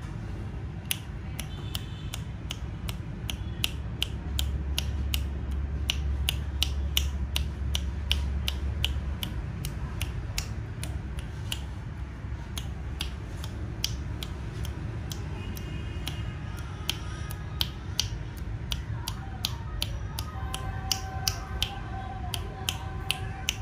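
Fish popping and smacking at the water's surface as they take floating food: sharp irregular clicks, two or three a second, over a steady low hum.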